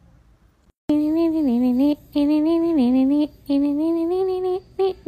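A wordless voice humming a slow tune in held notes of about a second each, several phrases stepping down in pitch at their end. It starts suddenly about a second in, after a near-quiet moment.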